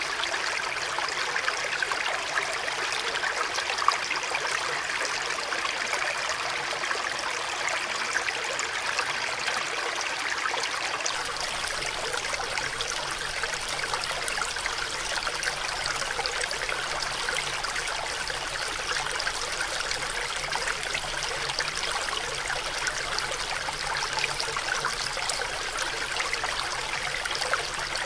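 Shallow mountain stream flowing over rocks, a steady rush and trickle of water. About eleven seconds in, the recording changes from a camera's built-in microphone to a Roland CS-10EM binaural microphone, and the tone of the water noise shifts.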